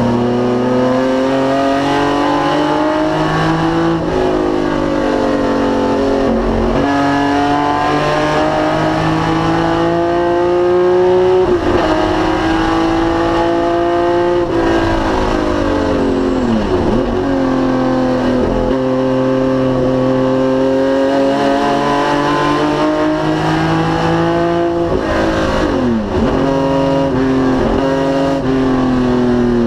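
Straight-six engine of a 1973 BMW CSL Group 2 race car running hard in long pulls, its pitch climbing slowly. The pitch dips briefly about four seconds in, then falls sharply twice, once about halfway through and once near the end, before climbing again.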